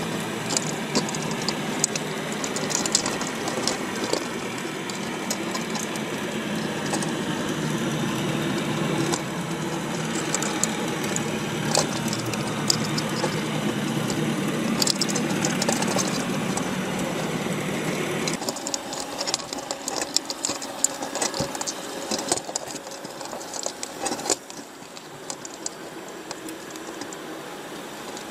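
Underwater sound inside a crowded wire crab trap: many crabs' shells and claws clicking and scraping against each other and the mesh in a dense, irregular crackle. Under it runs a steady mechanical hum that stops abruptly about two-thirds of the way through, leaving the clicking on its own and quieter.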